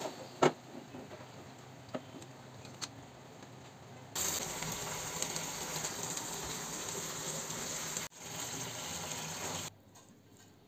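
A few light clicks and knocks, then about four seconds in a steady hissing sizzle from bottle-gourd-leaf-wrapped koi fish (climbing perch) cooking in a pan of bubbling gravy. It cuts off abruptly about eight seconds in, comes back briefly, and stops near the end.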